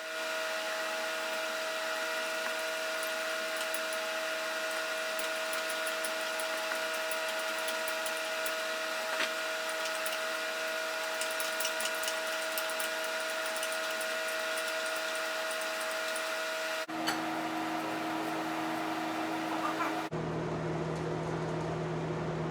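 A steady machine hum, like a small motor running, with a few faint light clicks; the hum changes abruptly twice near the end.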